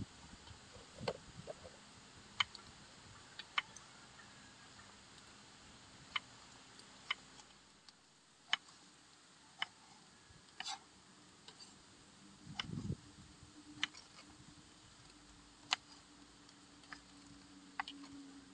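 Kitchen knife slicing green eggplant on a wooden cutting board: faint, sharp knocks of the blade on the board, about a dozen at uneven intervals of a second or two.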